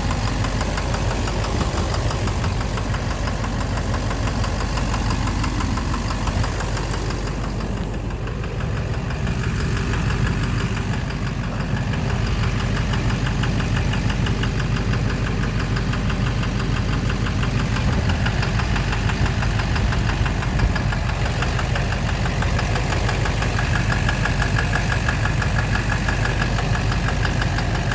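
Duramax LMM 6.6-litre V8 turbodiesel idling steadily with a rhythmic knock. The owner believes the knock comes from the bottom end, though an oil analysis shows no abnormal wear.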